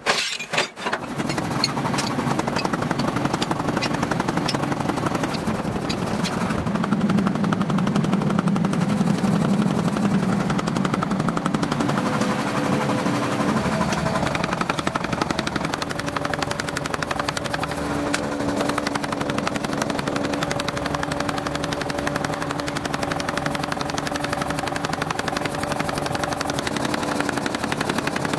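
A machine running with a rapid, continuous rattle; a steady hum joins in about twelve seconds in.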